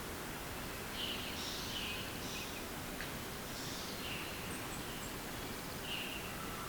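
A bird calling repeatedly in short, high phrases, starting about a second in, over a steady outdoor hiss.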